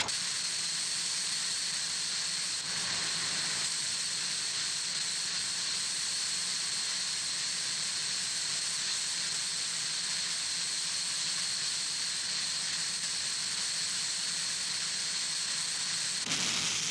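Steady hiss with two faint, thin, high-pitched whines held throughout, changing in character just before the end.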